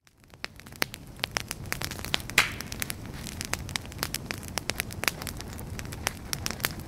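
Wood fire crackling and popping over a low, steady rumble, fading in over the first second, with one sharper, louder pop about two and a half seconds in.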